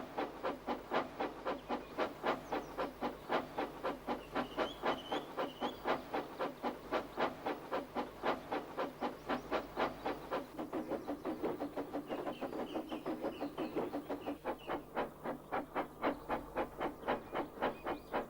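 Goods wagons rolling over rail joints with a steady clickety-clack, about three clicks a second. Brief high squeaks from the wagons come through twice.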